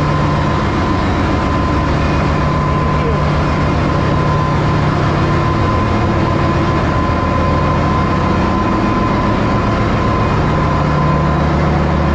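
Ship's engine-room machinery running: a loud, steady drone with a constant low hum and a thin steady whine above it.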